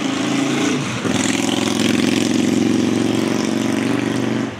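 A motor vehicle driving past on the road, its engine loud and steady, with a brief break in the engine note about a second in before it runs louder and then drops away near the end.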